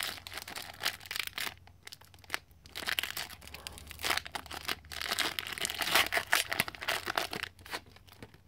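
Foil trading-card pack wrapper being torn open and crinkled by hand: a run of dense crackling rustles with a couple of short breaks, stopping shortly before the end.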